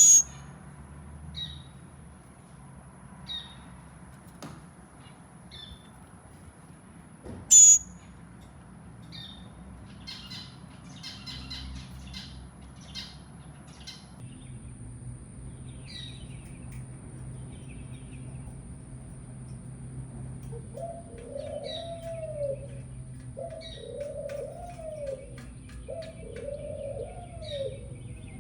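Birds calling: short high chirps scattered throughout, then a series of low arching calls repeating about every second and a half near the end. Two sharp loud clicks stand out, one at the very start and one about seven and a half seconds in, over a low steady hum.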